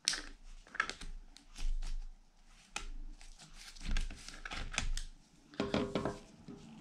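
Rustling of disposable plastic gloves with irregular clicks and scrapes of hands handling a laptop's plastic bottom case around the battery.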